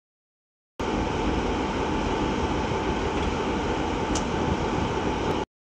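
British Rail Class 47 diesel locomotive idling at a standstill, its Sulzer twelve-cylinder engine running steadily. The sound starts abruptly about a second in and cuts off abruptly near the end.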